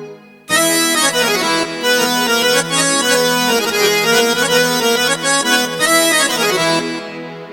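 Casio CT-X8000IN portable keyboard playing one of its Indian instrument tones, a reedy sustained voice. After a half-second pause it plays a melody with chords over a steady low drone, then eases off near the end.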